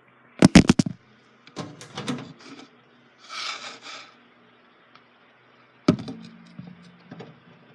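A 20-inch box fan being handled and turned onto its side: a quick cluster of sharp knocks about half a second in, softer bumps, a brief scraping rustle in the middle, and another sharp knock near the end.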